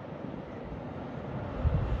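Semi-truck pulling a trailer drives past with steady engine and road noise. A deeper engine rumble grows louder about one and a half seconds in.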